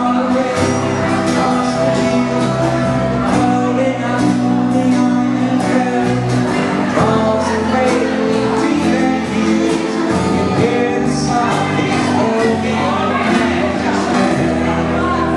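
A live band playing a song with a singer, drums keeping a steady beat.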